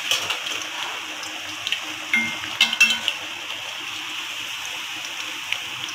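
Hot oil sizzling steadily around a besan-coated naan deep-frying in an aluminium karahi. About two to three seconds in come a few clicks and a short squeak as metal tongs scrape the pan and turn the naan over.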